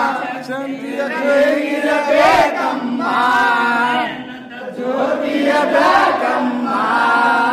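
A crowd of men chanting a devotional song to Ganesha together in unison, in two long phrases with a short break in the middle.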